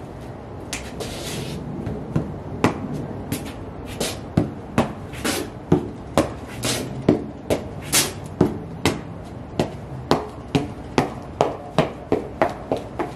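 Sheepskin UGG boots stepping and tapping on a concrete floor: a run of sharp taps about two to three a second, quickening and growing more regular in the second half.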